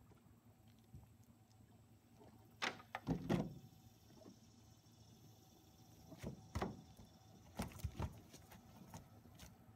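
Cast net being hauled into a small metal boat: short thumps and clunks of the net and its weights against the hull, coming in three clusters, a few seconds in, past halfway and near the end.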